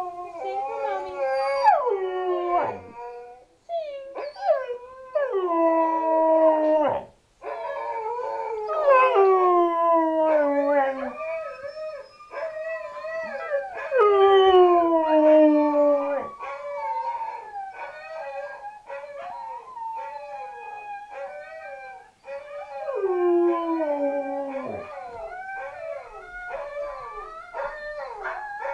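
A husky–German shepherd mix howling along with recorded dogs howling, several voices at different pitches overlapping in long howls that mostly slide downward in pitch, broken by short pauses.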